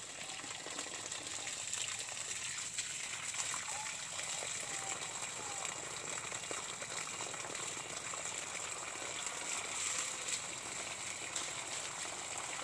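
Water gushing steadily from a hose watering coffee plants.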